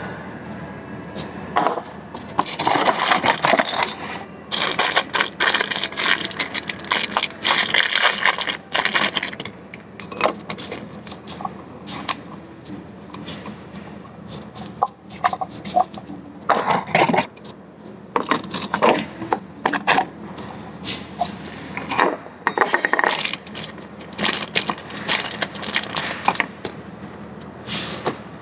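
Irregular metallic clinks and knocks in busy clusters with short pauses, from metal objects being handled.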